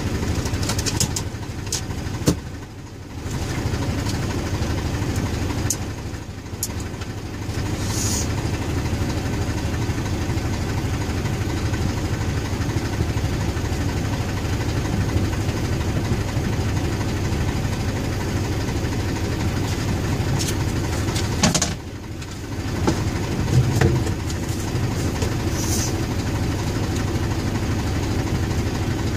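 Scania 114G 340 truck's straight-six diesel engine running steadily at a low, even pace, dipping briefly in level twice, about three seconds in and about twenty-two seconds in, with a few sharp clicks.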